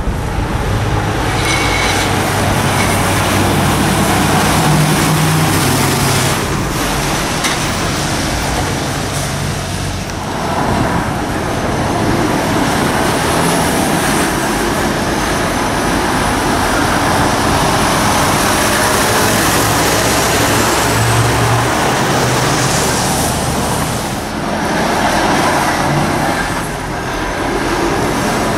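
Diesel engines of articulated lorries, a DAF and then a Volvo, running as they drive slowly through a junction, with tyre and traffic noise. The sound dips briefly twice, about ten seconds in and near the end.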